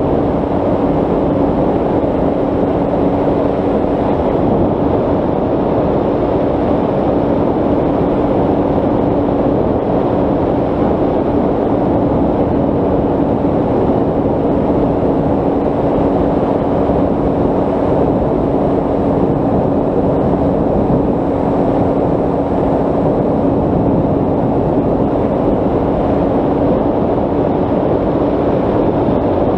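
Electric RC plane in level cruise, heard from on board: its Turnigy 3542 brushless motor and 10x7 propeller give a steady drone with one held tone, under a rush of wind over the microphone.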